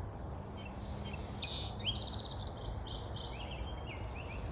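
A songbird singing one long, quick phrase of high chirping notes, starting about a second in and stepping down in pitch toward the end, over a steady low background rumble.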